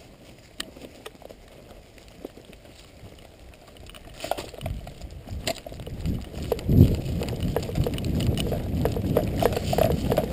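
Running footsteps through dry fallen leaves, with thumping rumble and scattered crackles of leaves and twigs; the steps grow louder and more rapid from about four seconds in.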